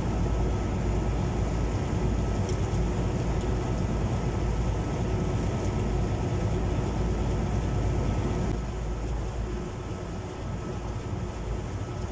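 Boat's engine running steadily, with water churning in its wake; the sound drops a little about eight and a half seconds in.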